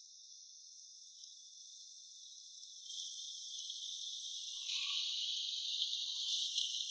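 Steady high-pitched insect chorus, rising in loudness about three seconds in and again near the five-second mark.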